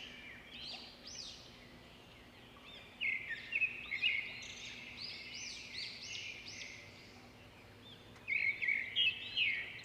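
Small birds chirping: runs of quick, short, high chirps, one spell starting about three seconds in and another near the end.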